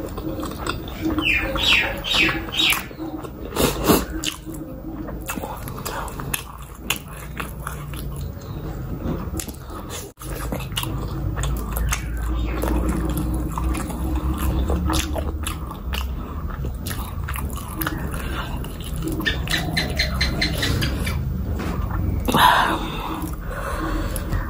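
Close-miked chewing of a large steamed chicken momo, with wet mouth sounds and small clicks and smacks of the lips and tongue.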